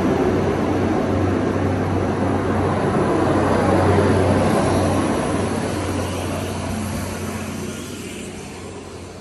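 A large vehicle passing: steady engine noise, a low hum under a broad rush. It is loudest about four seconds in, then fades away over the last few seconds as it moves off.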